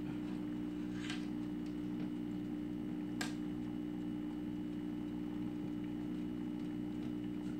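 Steady mechanical hum, with a few faint clicks and one sharper click about three seconds in.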